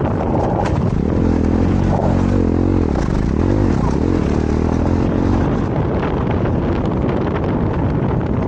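KTM 390 Adventure's single-cylinder engine under way, its pitch rising and falling with the throttle for a few seconds from about a second in, with wind rushing over the microphone throughout.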